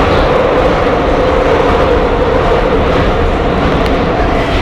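A Budapest Metro line 3 train, a Soviet-built metro car, running through the tunnel and heard from inside the car: a loud, steady rumble of wheels on rail and running gear with a steady drone in the middle.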